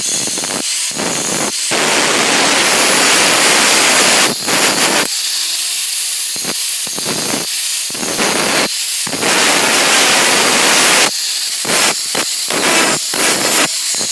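Handheld angle grinder with a thin cut-off wheel cutting through stainless steel pipe: a loud, harsh, high hiss, broken by several short gaps as the wheel eases off the metal.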